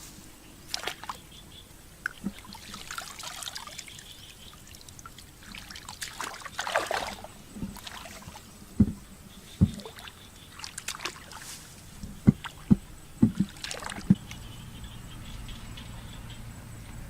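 Shallow water splashing and trickling as it is scooped and thrown by hand, with a longer splash about six seconds in and a string of short sharp thuds in the second half, the loudest sounds here.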